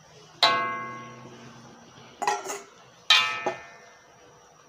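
Metal spatula knocking against a metal wok while stirring, about five clanks, each ringing out and fading over a second or so.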